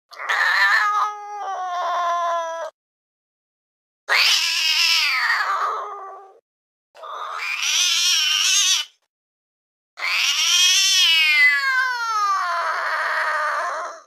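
Domestic cat yowling angrily: four drawn-out, wavering yowls with silent gaps between them, the last and longest one sliding down in pitch.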